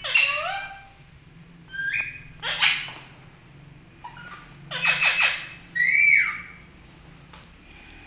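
Alexandrine parakeet calling: a string of about five loud calls, some harsh screeches and some gliding squawks that swoop up and down in pitch, stopping about six and a half seconds in.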